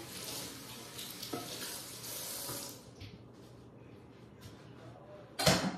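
Kitchen tap running water into a pan, shut off about three seconds in. A loud clunk near the end.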